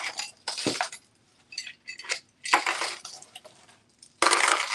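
Costume jewelry clinking and rattling as it is handled, in a few short bursts. A louder crinkling rustle of packaging starts near the end.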